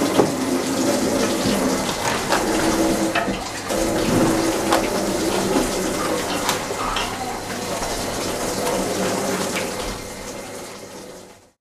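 Kitchen tap running into a sink during washing up, with scattered light clinks of utensils; the sound fades out near the end.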